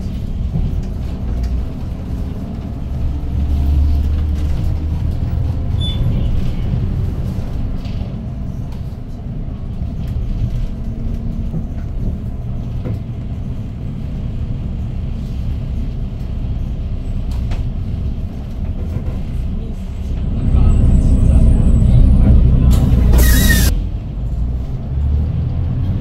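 Cabin sound of a Hyundai GreenCity city bus's C6GA CNG engine running as the bus drives. The engine grows louder for a few seconds about three-quarters through, and that stretch ends in a short, loud hiss of compressed air from the air-brake system.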